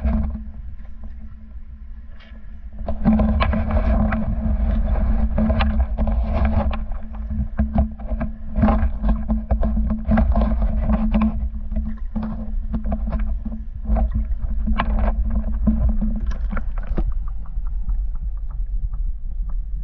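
Water lapping and splashing against an action camera held at the surface of a spring pool, with many short sloshes and crackles over a low rumble and a steady low hum. The splashing is busiest from about three seconds in and thins out near the end.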